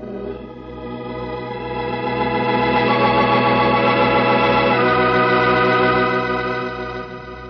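Organ music bridge closing a radio drama scene. Sustained chords swell up over the first couple of seconds, move to a new chord about five seconds in, and fade down near the end.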